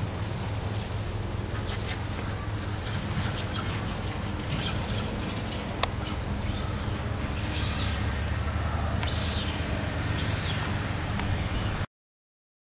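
Small birds chirping at intervals over a steady low rumble, with one sharp click about six seconds in. The sound cuts off abruptly near the end.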